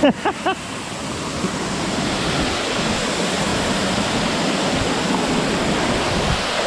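Steady rush of moving water, growing a little louder over the first couple of seconds and then holding even.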